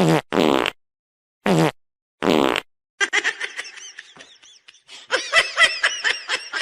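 Four short, loud, buzzy fart-like blasts in the first two and a half seconds, then a run of people laughing.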